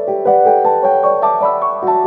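Gentle instrumental background music led by piano, playing a flowing melody of sustained notes.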